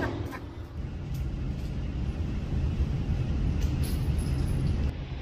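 The echo of a handgun shot dies away at the start, leaving a steady low rumble of background noise in the indoor shooting range, with a few faint clicks.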